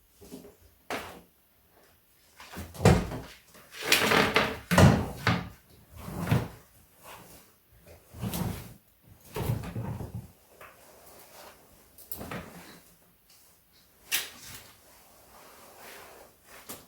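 A run of irregular knocks, bumps and clatters from household things being handled, loudest and densest in the middle of the stretch, then thinning out with one sharp knock near the end.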